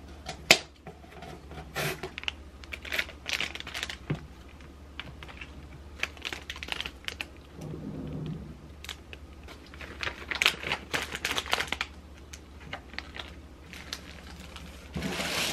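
Groceries being unpacked from cardboard delivery boxes: irregular clicks and taps of cardboard and a box cutter, and crinkling of plastic-wrapped food packages, with a louder rustle of a plastic bag near the end.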